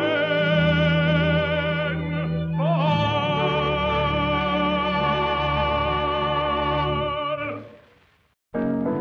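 A singer with an orchestra sings the long held final notes of a 1940s wartime ballad, with wide vibrato. The last note swells and then fades away about eight seconds in. A new dance-band tune starts just before the end.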